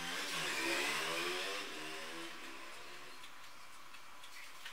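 A motor vehicle's engine passing by, swelling to a peak about a second in and fading away by about two seconds, then a faint steady background.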